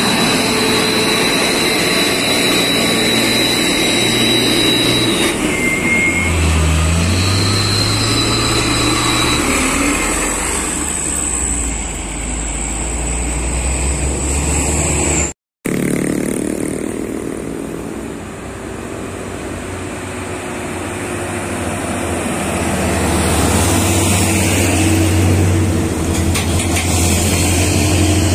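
Heavy diesel trucks climbing a steep hill close by. A Mitsubishi Fuso Fighter box truck passes with a steady high whine over its engine. After an abrupt cut, another truck engine grows louder as it comes up the grade.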